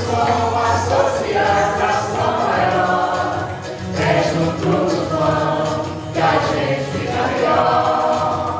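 A choir singing, several voices together in sustained, moving lines.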